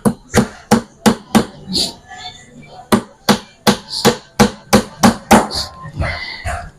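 Hammer blows on plywood, a steady run of sharp strikes about three a second, broken by a short pause about two seconds in.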